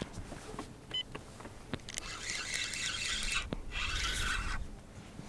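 Spinning reel being cranked to bring in line, a high gear whirr in two spells, one about two seconds in and a shorter one near four seconds, after a few light clicks.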